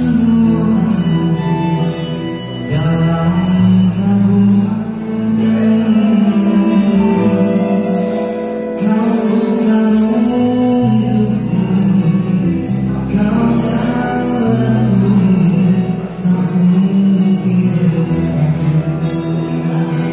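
Live amplified band playing a song: acoustic and electric guitars and keyboard over a moving bass line and a steady beat, with a man singing into a microphone.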